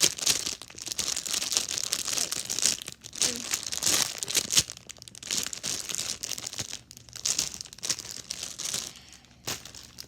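Plastic packaging crinkling and rustling in irregular bursts as a squishy toy is unwrapped by hand, thinning out near the end.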